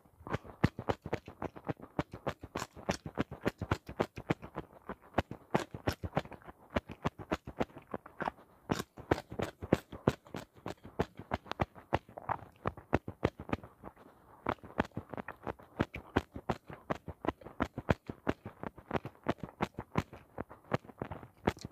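A person biting into and chewing raw okra and other fresh vegetables: a steady stream of crisp, crunchy bites, several a second.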